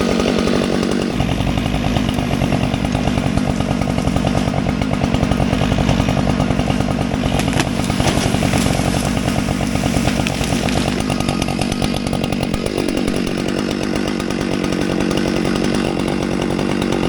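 Two-stroke chainsaw running steadily, its engine note changing about a second in and dropping again about three quarters of the way through.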